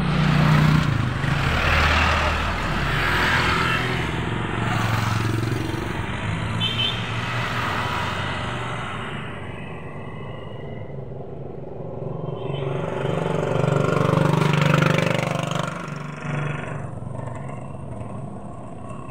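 Motorcycle tricycle's engine running on the move, with a steady rushing road and wind noise; the sound swells twice, near the start and again about fourteen seconds in.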